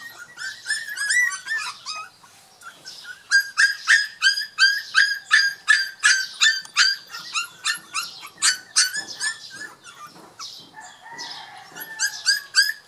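Young puppy crying in a run of short, high-pitched squeals, two or three a second. The cries are loudest through the middle and come again near the end.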